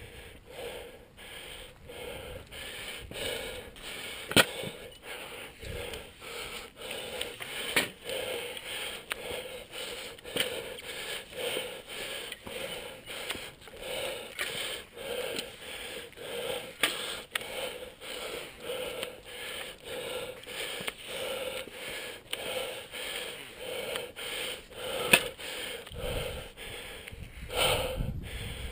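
A climber's heavy, rapid breathing, in and out in a quick even rhythm from exertion and nerves while hauling up a steep rock slope on steel cables. A few sharp clicks or knocks stand out now and then.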